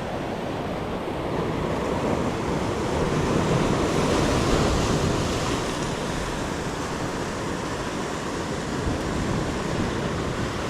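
Ocean surf washing on the shoreline, a steady rush that swells a few seconds in and then eases off.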